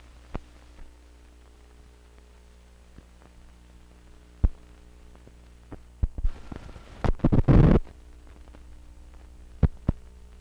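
Old film soundtrack running over blank leader: a steady low hum with scattered sharp pops and clicks, and a loud patch of crackling and popping from about six to eight seconds in.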